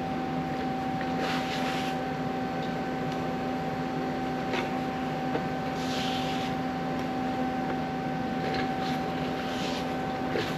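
A welder putting short tack welds on a steel patch panel: a few brief hissing bursts about half a second long, over a steady electrical hum.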